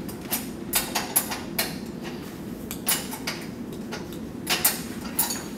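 Irregular sharp metallic clicks and clinks of box wrenches on the steel nut and bolt of a fixed-point hanger as it is tightened, over a steady low hum.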